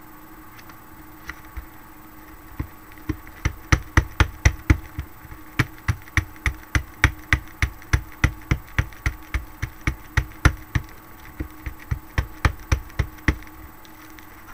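A rubber border stamp is tapped down again and again in quick succession while being inked and stamped. It makes a long run of light, sharp knocks, about three a second, with a short break partway through.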